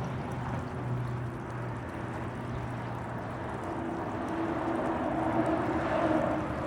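Steady low mechanical hum over a rushing noise, with a second, higher hum coming in and growing a little louder toward the end.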